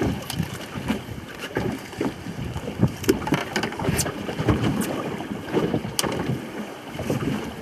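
Wind buffeting the microphone on an open boat, with irregular knocks and taps as a hooked catfish twists in a landing net on the deck.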